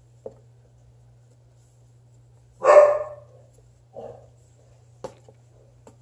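A dog barks once, loudly, a little under halfway through, with a softer short sound about a second later. A few faint clicks around it.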